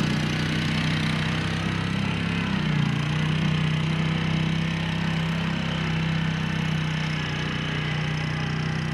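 Yamaha Grizzly 700 ATV's single-cylinder four-stroke engine running through its stock exhaust, without the 2R Racing tip, as the quad rides away along a trail. The engine note shifts briefly about three seconds in, then settles into a steady drone that fades slightly.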